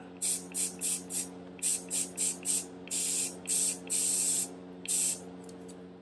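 Aerosol can of Rust-Oleum flat black spray paint spraying into a small cup in about a dozen short hissing bursts, a few of them longer around the middle. A steady low hum runs underneath.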